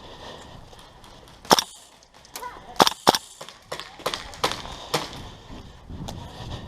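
Airsoft guns firing a handful of sharp single shots. The loudest comes about a second and a half in and a quick pair follows near three seconds, then a few quieter shots.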